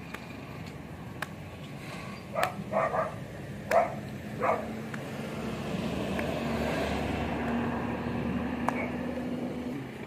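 Four or five short, loud animal calls or barks a couple of seconds in, over a faint background. A steady low engine hum from passing traffic comes up in the second half and fades out near the end.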